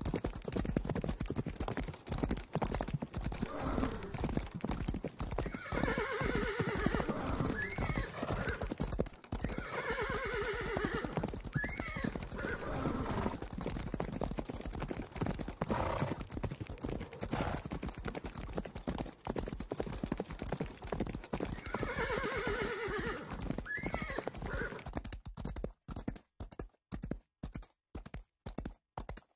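Horse stampede sound effect: a dense drumming of galloping hooves with horses whinnying about four times. Near the end the hoofbeats thin out to a slow, even clip-clop.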